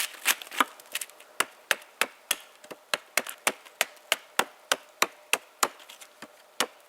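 A blade chopping into a birch log in a steady run of sharp strikes, about three a second, cutting into the log's surface.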